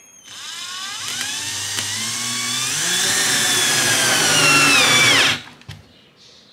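Handheld power drill working through the mounting corner of a plastic junction box into the wall. Its motor whine climbs in pitch as it spins up, grows louder, then drags down in pitch as the load builds, and it stops abruptly about five seconds in, with a light knock just after.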